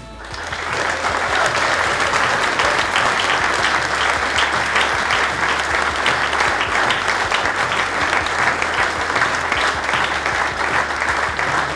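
A roomful of people applauding: dense hand-clapping that builds over the first second and then holds steady.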